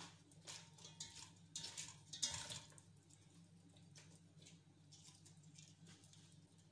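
Very quiet kitchen room tone with a faint low hum, broken by a few soft rustling and handling sounds in the first half, the loudest about two seconds in.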